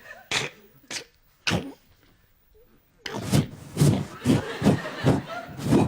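A man making vocal sound effects into a microphone: three short mouth noises, a brief pause, then a rapid run of short vocal noises.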